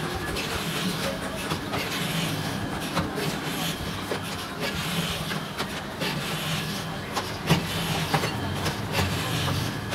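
Battery paste mixer running with a steady low drone while it works lead-oxide paste in its trough, with scattered knocks and clatters over it.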